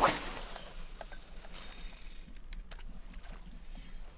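A quick swish of a spinning rod being cast, with line running off the reel, fading over about half a second. A few faint clicks follow.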